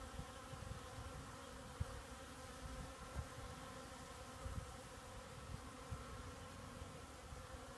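Many honeybees buzzing as they fly around and forage in a cactus flower: a faint, steady hum with several overtones, broken by soft low thumps on the microphone.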